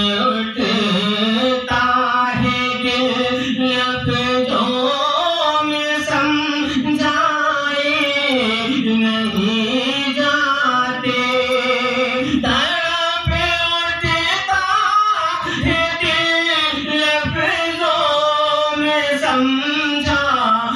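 A man singing a naat, an Urdu devotional poem in praise of the Prophet, solo into a microphone, with long held notes that bend and waver in pitch.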